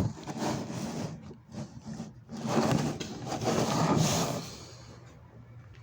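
Handling noise: a plastic motor-oil bottle being turned and rubbed in the hands close to the microphone, in uneven rustling scrapes that die away near the end.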